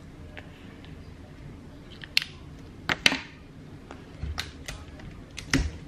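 Small craft items handled on a countertop: a scattered series of about six short sharp clicks and taps, the loudest around three seconds in.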